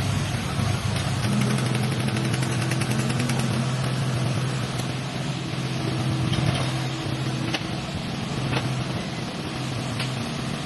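Car engine running steadily at idle, with a few sharp ticks in the second half.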